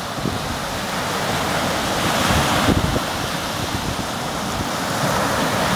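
Baltic Sea surf breaking on a sandy beach: a steady wash of waves that swells briefly about two seconds in, with wind buffeting the microphone.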